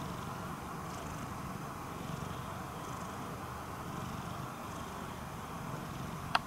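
Domestic long-haired cat purring steadily, a soft continuous low rumble. A short, sharp pitched blip cuts in right at the end.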